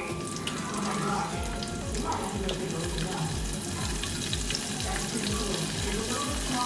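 A batch of flour-coated shrimp deep-frying in hot oil in a saucepan, the oil bubbling and sizzling steadily.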